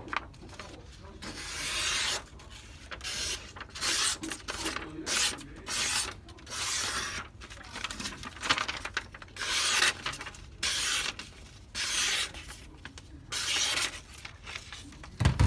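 A D2 steel pocket-knife blade slicing through a sheet of paper again and again, about fourteen short hissing cuts at roughly one a second, showing the blade is sharp.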